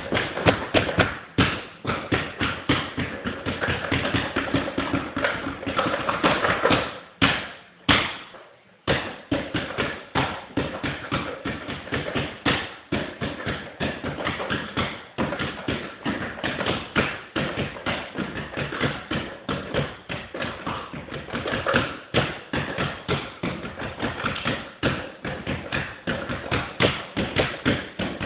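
Basketball dribbled rapidly on a hardwood floor: a fast, continuous run of bounces, with a short break about seven seconds in.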